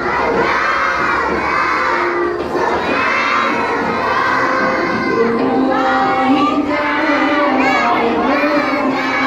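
A large group of young children shouting a rhyme together in unison, loud and continuous, in repeated phrases about a second long.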